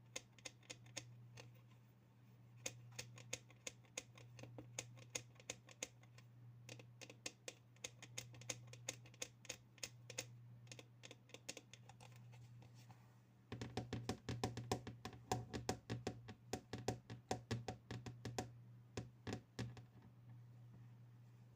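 Fingers tapping rapidly on objects for ASMR: a dense run of light clicks, several a second, over a steady low hum. About two-thirds of the way through, the tapping turns louder and fuller, then thins out near the end.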